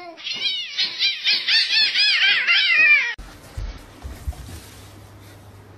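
Cat giving a quick run of high, rising-and-falling chirping calls, about four or five a second, for about three seconds. The calls stop suddenly, leaving a faint low hum with a couple of soft thuds.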